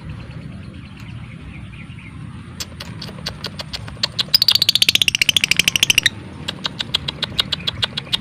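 Lovebird calling: scattered sharp ticks build into a loud, very rapid chattering trill of about two seconds, falling in pitch, around the middle, then slower ticking resumes. This is the 'ngekek' trill and 'ngetik' ticking that lovebird keepers use to get other lovebirds to sing.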